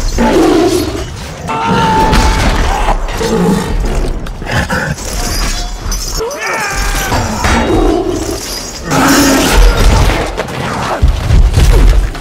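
Film battle soundtrack: orchestral score mixed with loud battle sound effects, including crashing impacts, heavy low booms and creature cries.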